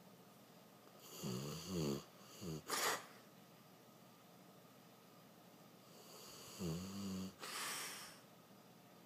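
A sleeping dog snoring, two breaths about five seconds apart. Each is a low, wavering snore followed by a short, breathy rush of air.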